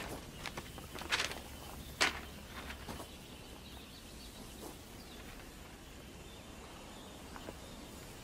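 Quiet outdoor ambience, with a handful of short scuffs in the first three seconds, the loudest about two seconds in.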